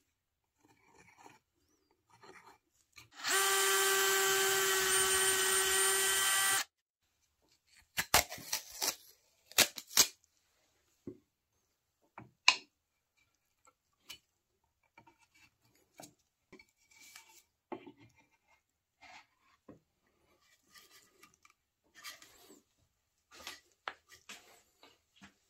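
Cordless drill running at a steady speed for about three seconds, drilling dowel holes in a pine board. Afterwards come a scatter of short wooden knocks and clicks as fluted dowels are handled and fitted into the holes.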